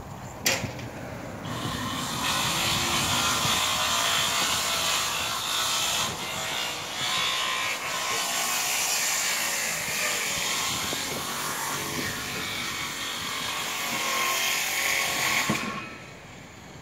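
A power tool running steadily with a hiss-like sound for about fourteen seconds, starting and stopping abruptly, after a single sharp click.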